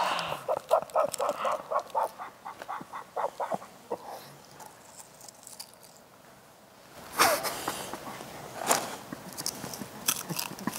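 Crunchy snack chips chewed close to clip-on microphones: a quick run of crunches in the first few seconds, then after a short lull a few louder bursts near the end.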